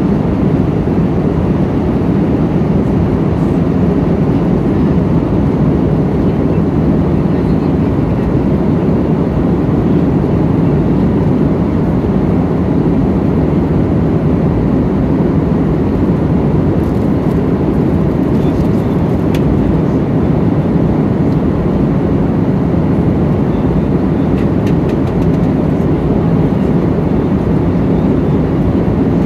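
Steady low rumble of an airliner's engines and rushing air heard inside the cabin in cruising flight.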